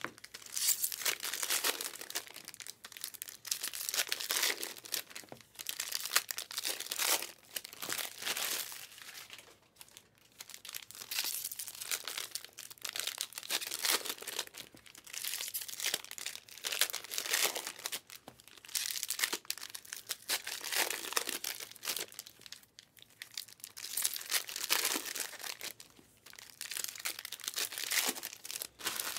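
Foil wrappers of Panini Prizm hobby trading-card packs crinkling and tearing as the packs are ripped open and handled, in irregular rustling bursts every second or two.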